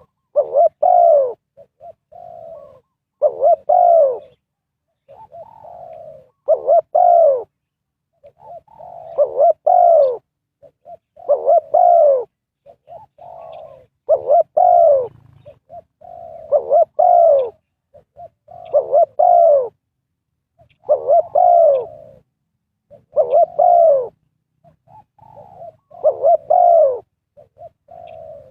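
Spotted dove cooing, its phrase repeated about every two seconds: a soft opening note, then two loud coos that rise and fall in pitch.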